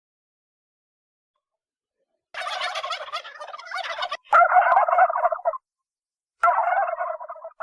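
Turkey gobbling: a rapid, rattling, warbling call that starts about two seconds in and lasts about three seconds, then a second gobble near the end.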